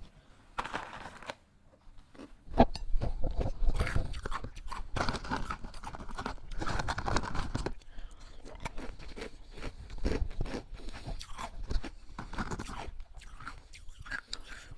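A person biting and chewing hard ice cubes: a few crunches at first, then from about two and a half seconds in a dense, uneven run of loud, sharp crunches.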